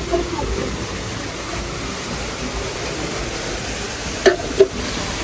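Steady background hiss, then two sharp clicks about a third of a second apart near the end as a wooden-framed glass door is pushed open.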